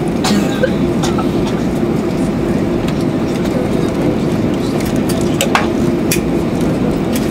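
Cabin noise of an Airbus A320-214 rolling on the ground after landing: a steady low rumble of its CFM56 engines and airflow with a faint hum, and a few sharp knocks from the airframe and wheels.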